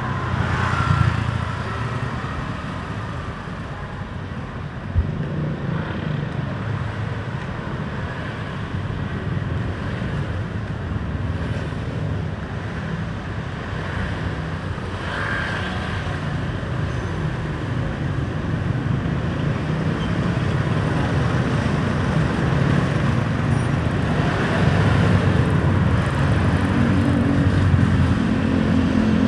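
Street traffic: car and motorbike engines passing, growing louder toward the end, with one sharp knock about five seconds in.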